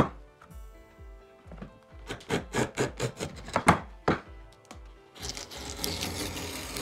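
Background music over workshop sounds: a quick run of about a dozen sharp knocks on wood from about two seconds in, then a steady rushing, scraping noise from about five seconds in.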